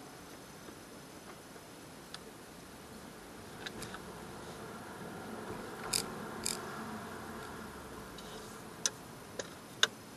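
Car cabin noise picked up by a dash cam's built-in microphone while driving slowly: low road and engine noise that swells for a few seconds in the middle, with scattered sharp clicks, a pair about six seconds in and three close together near the end.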